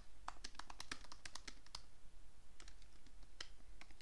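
Typing on a computer keyboard: a quick run of keystrokes, a short pause about two seconds in, then a few more keystrokes.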